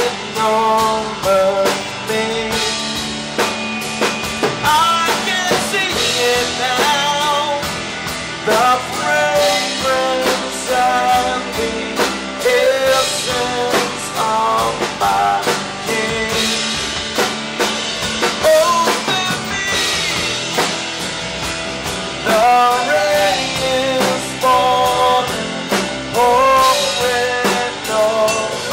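A rock band playing live: drum kit and band under a melodic lead line that wavers with vibrato.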